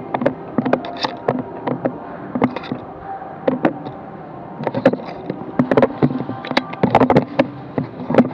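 Scattered sharp cracks of airsoft gunfire and BB hits, irregular and sometimes in quick clusters of several, over a steady hum.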